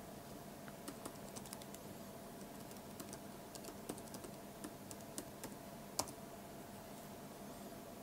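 Typing on a laptop keyboard: a run of quick, light key clicks, then one louder key press about six seconds in.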